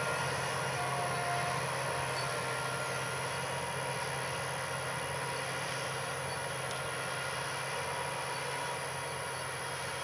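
John Deere 8345R tractor's six-cylinder diesel engine running steadily under load while it pulls a 24-foot S-tine field cultivator through the soil. The sound slowly fades as the tractor moves away.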